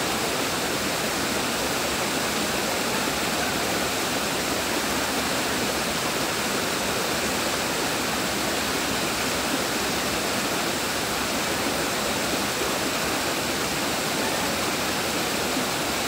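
Rushing water of a boulder-strewn stream tumbling over rocks below a waterfall: a steady, even rush with no change.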